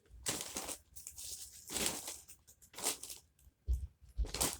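Plastic packaging bag crinkling and rustling in a series of irregular short bursts as fidget toys are packed into it, with a couple of soft thumps near the end.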